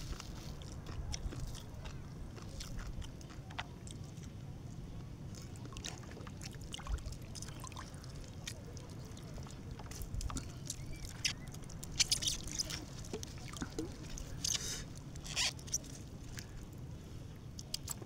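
Small wet handling sounds of raw fish being torn apart and cut by hand: scattered soft clicks and a few short crackly squelches, the loudest a little past the middle, over a steady low rumble.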